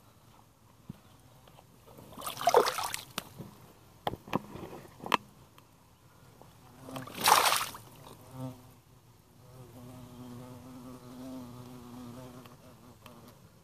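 Wet mud squelching and splashing twice under rubber waders, with a few small smacks between. Then an insect, most like a fly, buzzing steadily in the last few seconds.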